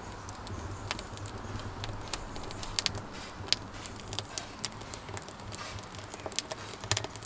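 Birch logs and kindling burning in a wood-fired oven, crackling with many sharp, irregular pops over a faint low hum.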